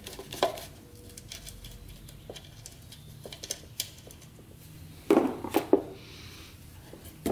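Light clicks and scrapes of a screwdriver and gloved fingers working the metal bulb-retaining clips in an ATV headlight housing, with a cluster of louder knocks about five seconds in.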